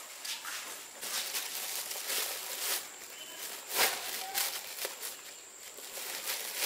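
Plastic bag of rice rustling and crinkling as it is handled and knotted, in irregular scrunches with a sharper crackle a little under four seconds in.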